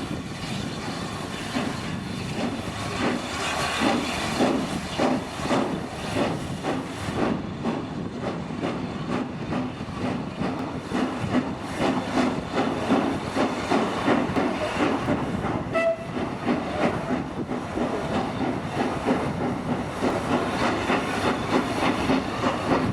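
Steam locomotive working, with rapid irregular beats and clanking over a steady hiss of steam.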